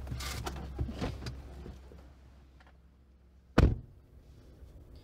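Inside a minivan's cabin: rustling and small clicks as someone moves about and gets out, a low hum fading away, then a car door shutting with a single heavy thump about three and a half seconds in.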